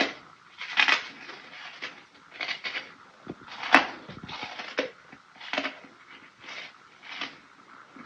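A person biting and chewing crunchy ice chunks: a run of short, crisp crunches, about one a second, with the sharpest snap about halfway through.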